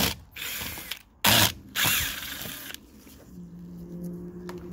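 Power drill backing screws out of the RV sidewall's bottom edge, run in about four short bursts in the first three seconds.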